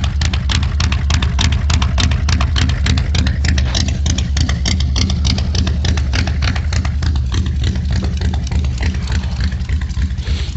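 Hot rod engine idling steadily, running with a rapid even pulse of about seven beats a second over a low hum.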